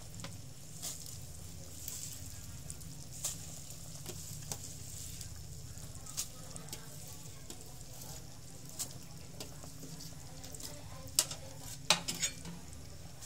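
Soup simmering in a stainless steel pot on a gas burner: a steady bubbling hiss, with scattered light clicks and knocks as herbs are added, and a cluster of sharper knocks near the end, the loudest part.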